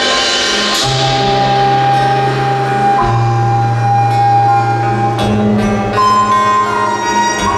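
Live instrumental music from a Korean traditional-fusion ensemble: a long held melodic note over a low steady drone. A bright struck stroke rings out at the start and fades within about a second.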